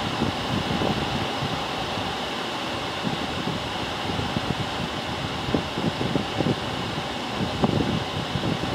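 Steady machine-like hum and hiss, with short, irregular low rumbles coming and going.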